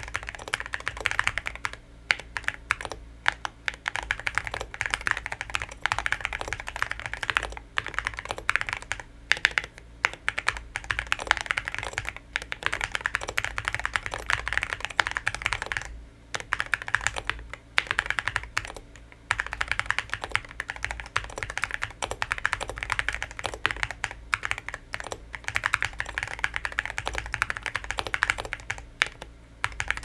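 Fast, continuous typing on a custom mechanical keyboard built with lubed linear Prevail Epsilon switches, a polycarbonate plate and aluminum keycaps, broken by a few short pauses. The keystrokes are deep and pronounced, which the builder puts down to the heavy aluminum keycaps.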